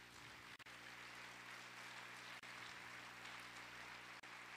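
Near silence: room tone, a steady faint hiss with a low electrical hum.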